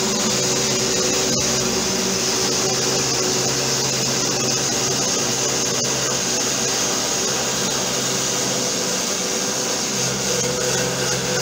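Homemade CNC router's 775 DC spindle motor running with a steady high whine as a 2.5 mm three-flute end mill cuts plywood. A lower machine hum underneath fades in the middle and comes back strongly near the end.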